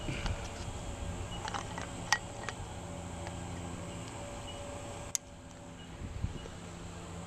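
Metal climbing hardware clinking as carabiners are handled: a handful of sharp clicks, the loudest about two seconds in and another just after five seconds, over a low background rumble.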